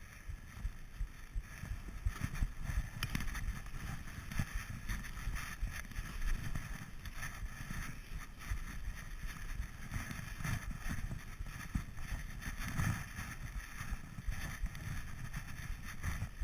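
Wind rushing over a GoPro camera's microphone at skiing speed, with gusty low rumbling, mixed with skis hissing through deep powder snow.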